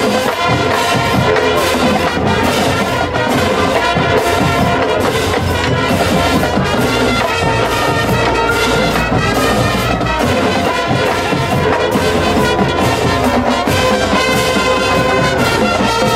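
Marching band playing loudly, led by brass with a drumline's snare, tenor and bass drums beating through it. The full band comes in suddenly at the start, after a quieter mallet passage.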